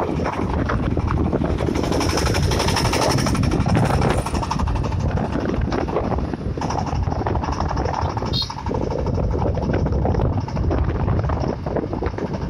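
Vehicle engines running steadily and the rumble of driving along a road, as the self-propelled corn sheller is driven by its own engine.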